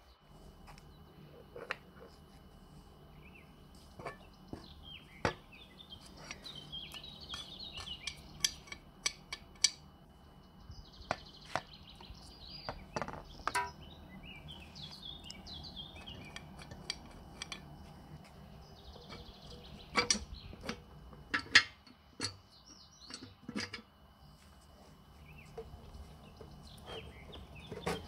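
Scattered clinks and knocks of cast-iron stove parts being handled and fitted together, with birds chirping in the background.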